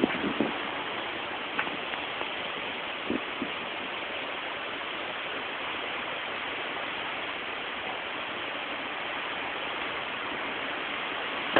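Hurricane rain falling heavily in a steady rushing hiss, with a few light knocks in the first few seconds.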